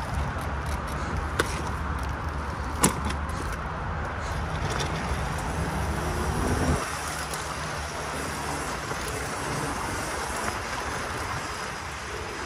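Small electric dirt bike ridden over bumpy ground: a steady rumble of the ride, with two sharp knocks about a second and a half and three seconds in. The low rumble eases about seven seconds in.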